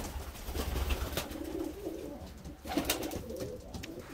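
Domestic pigeons cooing, several low rolling coos overlapping, with a few short sharp clicks among them.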